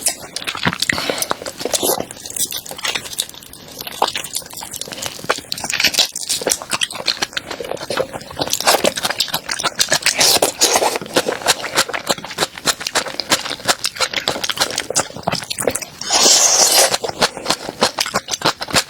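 Close-miked crunching and chewing of a crunchy food, made of rapid irregular crackles and bites, with louder bursts of crunching now and then.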